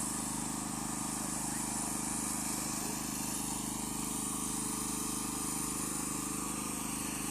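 Steady low mechanical hum, like a running engine, with a constant high hiss over it.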